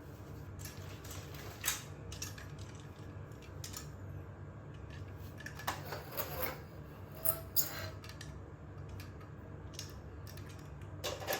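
Hard plastic toy car being handled and turned over: scattered light clicks and knocks, over a steady low hum.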